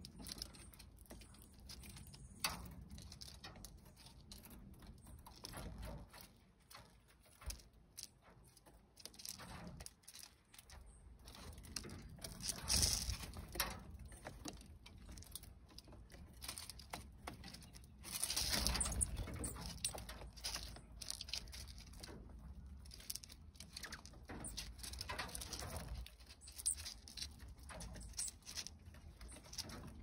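Dark-eyed juncos feeding on sunflower seeds on a wooden platform feeder: many scattered light taps and seed rattles from pecking and hopping. Two louder rushing swells come through, one near the middle and one about two-thirds in.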